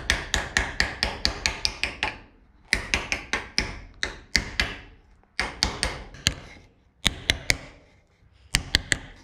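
Hammer tapping a nylon block laid over a thin lip seal, driving the seal into a Toyota Land Cruiser front wheel hub. Quick runs of light taps, about five a second, come in five bursts with short pauses between them.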